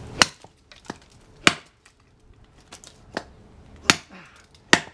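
A heavy knife blade chopping into a hardwood branch laid on a wooden stump. There are about seven sharp blows at uneven spacing, some harder than others.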